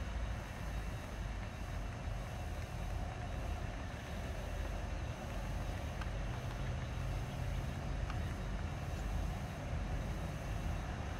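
Several diesel locomotives, Tasrail DQ class in multiple, hauling a container freight train, heard from a distance as a steady, unchanging low rumble.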